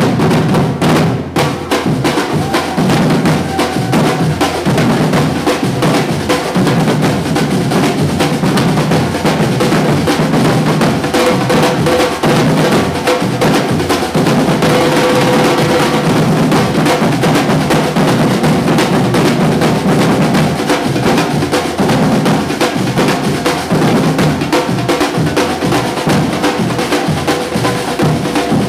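Batuque percussion group drumming together, many drums playing a dense, driving rhythm with deep drums under sharper ones, with a brief break about a second in.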